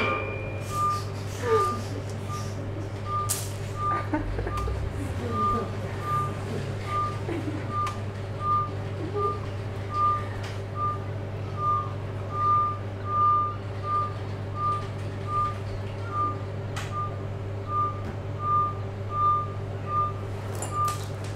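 A high electronic beep repeating steadily, about three beeps every two seconds, like a reversing alarm, over a steady low hum. A few faint clicks are heard now and then.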